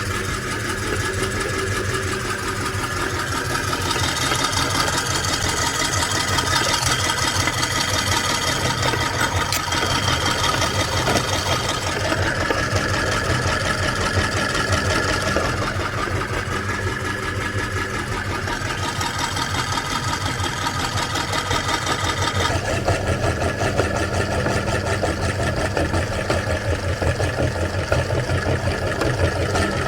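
Electric meat grinder motor running steadily while grinding cookies. A continuous hum, with the higher tones shifting every few seconds as the load changes.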